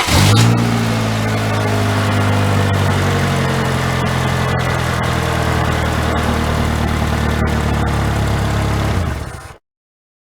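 Saturn car engine flaring briefly as it catches, then running at a steady idle. The sound cuts off suddenly near the end.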